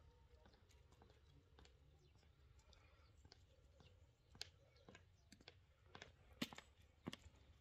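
Near silence broken by faint, irregular clicks and taps of footsteps on concrete paving stones, a few sharper ones in the second half.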